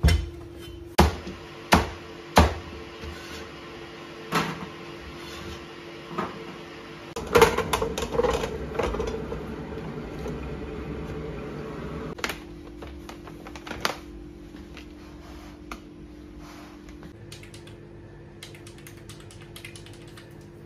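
Knife knocking down through a kabocha squash onto a cutting board, a few sharp strokes a second or so apart, then a clatter of squash pieces being dropped into a stainless steel steamer pot.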